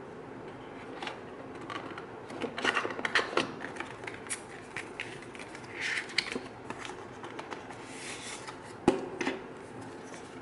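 Paper and thin white cardboard rustling and crinkling as a folded card documentation sleeve is pulled from a box insert and unfolded, with scattered crackles and a single sharp tap near the end.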